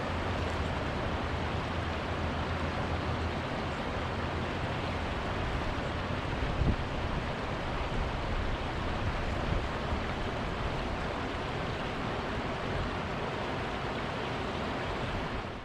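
Steady rushing noise, with one short thump a little under halfway through.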